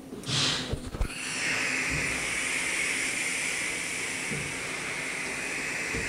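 Daewoo DHC 400 horizontal machining center running a pallet-change cycle: a short hiss and two knocks about a second in, then a steady hiss.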